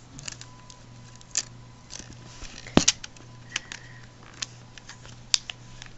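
WoPower solar battery case snapping onto an iPhone 4: a run of irregular clicks as the case is pressed on around the phone, each click a part of it seating in place. The loudest click comes about three seconds in.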